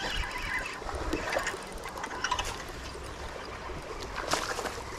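Water trickling and running over a small creek spillway, with scattered small clicks and a sharper knock about four seconds in.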